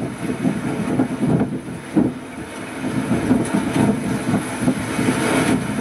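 Wind buffeting the microphone over the rumble of rough, choppy sea: an irregular, gusting noise with no steady engine tone.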